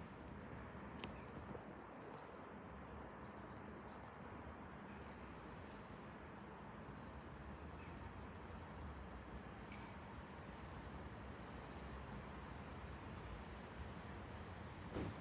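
Faint high-pitched chirping, in quick clusters of several short notes repeating roughly once a second, over a low steady rumble.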